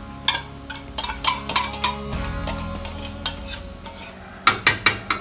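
A metal spoon scrapes and taps against a metal bowl, knocking pepper paste out into a metal pot. It makes a run of sharp clinks, then three louder knocks near the end.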